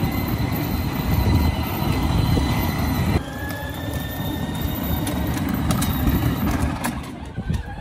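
The electric drive motors and gearboxes of a Peg Perego 24-volt ride-on toy car, running under load with a steady high whine over the rumble of the wheels on pavement. The whine steps slightly lower about three seconds in, and a few sharp knocks come through near the end.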